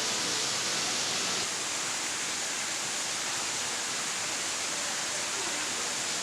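Steady rush of water from an artificial rock waterfall, a little quieter from about a second and a half in.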